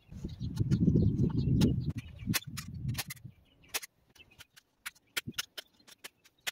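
Aviation tin snips cutting chicken wire: a run of sharp metallic clicks, several a second, as strand after strand is snipped. Before the clicks, about two seconds of low rustling noise.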